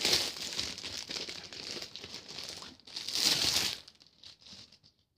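Crinkling and rustling of wrapping being handled and pulled off a book by hand. It is loud at the start and again about three seconds in, then dies away near the end.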